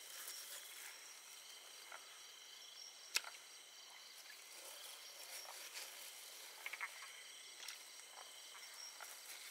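Night insects chirping steadily and faintly, with one sharp click about three seconds in and a few small clicks later as hands work in a muddy puddle.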